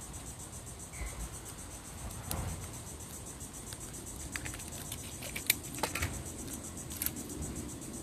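A steady high, pulsing chirr of insects, with a few short crackles and taps of paper and tape being handled on a table, the sharpest about five and a half seconds in.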